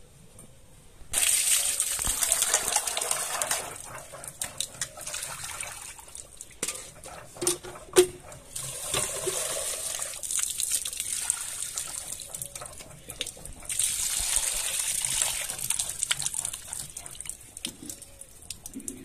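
Water gushing and splashing in three bursts as raw chicken is rinsed in a steel bowl, with knocks of the steel vessels in between, the sharpest about eight seconds in.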